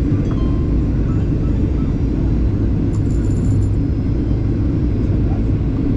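Airliner cabin noise during the descent to land: a steady low rumble of the jet engines and the airflow over the fuselage, heard from a window seat. A faint high whine sounds briefly about three seconds in.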